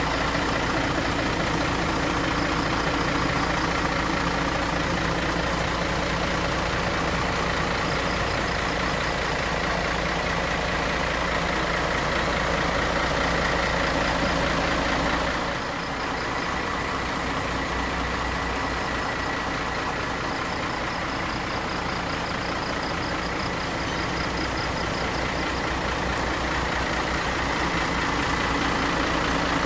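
Hino diesel engine of a coach idling steadily, heard at the rear by the exhaust outlet. It is slightly quieter from about halfway through and louder again near the end.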